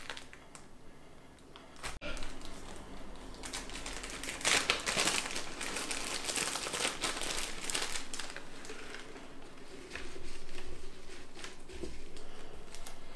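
Clear plastic bag of fresh basil leaves crinkling as it is opened and the leaves are pulled out by hand and pushed into a blender cup; an irregular rustle, busiest a few seconds in.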